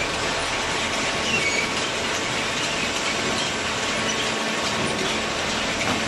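Horizontal hydraulic waste-paper baler running: a steady loud mechanical din with a few short, high squeaks.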